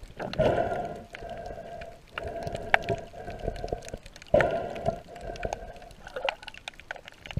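Water moving past an underwater camera in muffled surges about every two seconds, with many sharp clicks scattered throughout.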